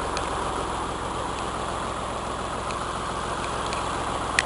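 Tractor engine idling steadily, with a few faint ticks and a couple of sharper clicks near the end.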